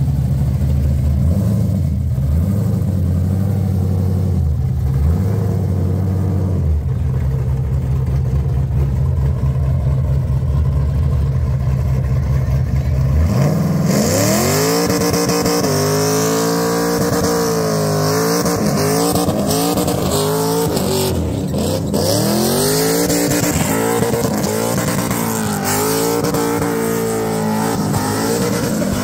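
A car engine runs steadily at low revs, then about halfway through is revved hard, its pitch swinging up and down again and again at high revs. A loud hiss comes in with the revving, as in a burnout.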